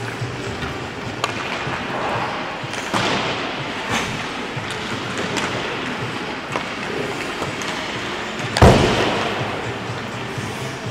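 Ice hockey warm-up in a rink: pucks and sticks knocking off the ice and boards, with one loud bang of a puck against the boards about two-thirds of the way through that rings in the arena.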